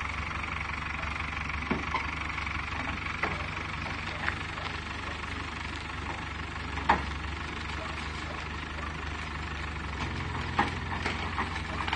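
Diesel engine running steadily at low revs while pulling a heavy tandem-axle trailer down steel loading ramps, with a few sharp metallic clanks, the loudest about seven seconds in.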